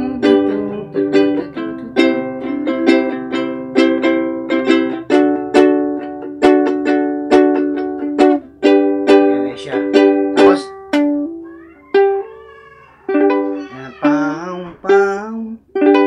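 Ukulele strummed in rhythm, changing from a G chord to a D chord and back to G. The strokes come close together for the first half, then thin out to sparser strums that ring out.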